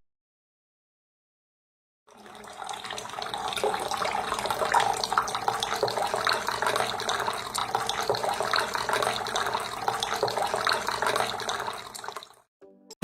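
Water running and splashing steadily in a small homemade tabletop waterfall fountain, fading in about two seconds in after silence and stopping shortly before the end.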